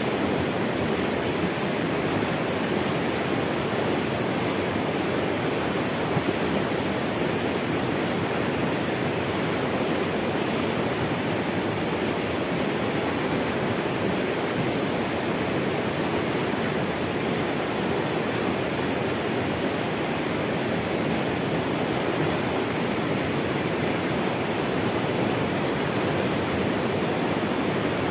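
Running water, a steady rushing of a stream or small waterfall with no pauses or changes.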